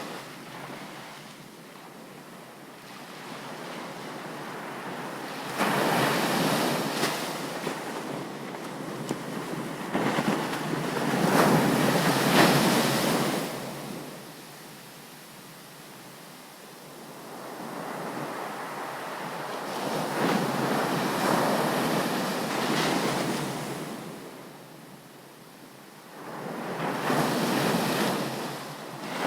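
Ocean surf on a beach: waves break and wash in three times, each swelling suddenly and then fading back to a softer hiss.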